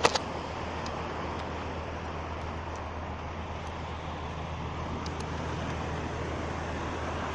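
Steady drone of a beach-cleaning machine's engine running, with a sharp knock right at the start as a folding beach chair is handled.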